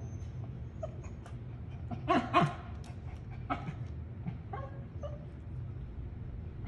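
Small fluffy dog whining and yipping in short pitched calls at its ball stuck under the sofa, with two louder barks in quick succession about two seconds in.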